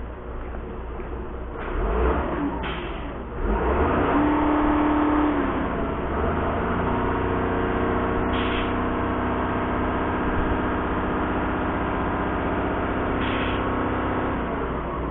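Diesel engine of a Kato SR-250 rough-terrain crane running and revving up, its pitch dipping and rising about six seconds in, then holding steady at raised revs. A few brief hisses sound over it.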